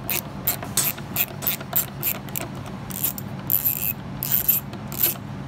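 Hand ratchet set to reverse, clicking as it backs out T25 Torx bolts: about four clicks a second, then two longer rasping runs of clicks near the end.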